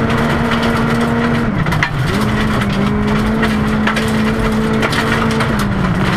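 Rally car engine running hard at high revs, heard from inside the cabin. The engine note holds steady, dips briefly about a third of the way in and again near the end, then picks back up. Gravel ticks and rattles against the car's underside.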